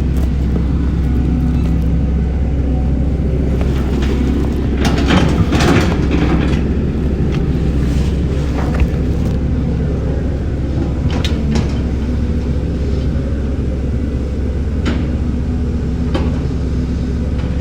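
Heavy diesel earthmoving machinery running steadily with a low engine drone, with occasional short clanks and knocks.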